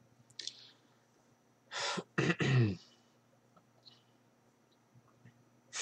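A man clearing his throat once about two seconds in: a short breathy rasp, then a brief voiced grunt dropping in pitch. A faint steady hum runs underneath.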